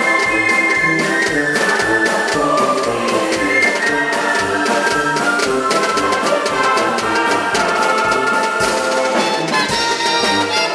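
Wind band playing: brass with tuba and clarinets over a drum kit keeping a steady beat. Higher notes come in near the end.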